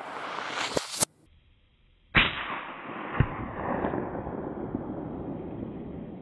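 Suppressed .223 bolt-action rifle shot about two seconds in, the loudest sound, followed by a long echo rolling away over several seconds and a short knock a second later. Just before it, a rising rush of noise ends in a sharp crack and cuts off.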